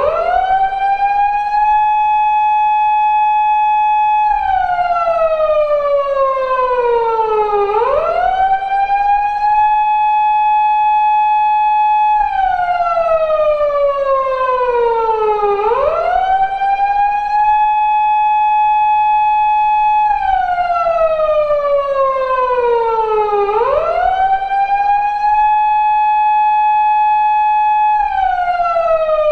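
Recreated Japanese police car siren of the type used on 170- and 180-series Toyota Crown patrol cars, wailing in an eight-second cycle. Four times, the tone rises quickly, holds steady on a high note for two to three seconds, then slides slowly down before rising again.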